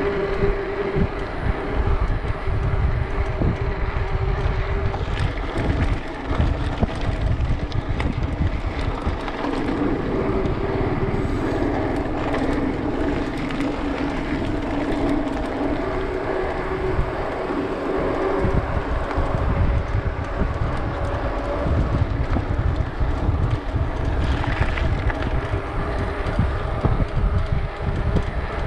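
Wind buffeting the microphone of an action camera on a moving mountain bike, a continuous rough rumble, with a steady droning hum that changes pitch every few seconds.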